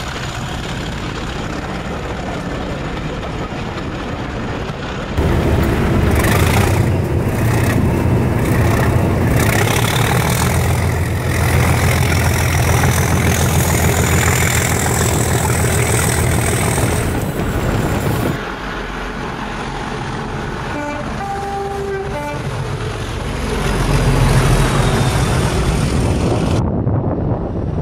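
Class 37 diesel locomotives' English Electric engines working hard under power, in several short clips. The engine is much louder from close by after the first cut, with a whistle climbing steadily in pitch over several seconds. After the next cut come a few short horn toots.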